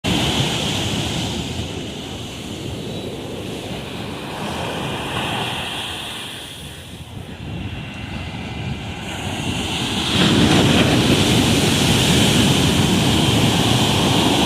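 Ocean surf washing onto a beach, a steady rush that eases off in the middle and then grows suddenly louder about ten seconds in as a wave breaks.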